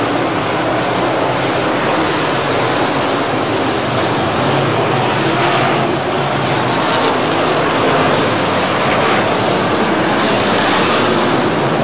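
Dirt track race cars running on the oval, heard as a loud, steady rush of engine and track noise that swells briefly a few times.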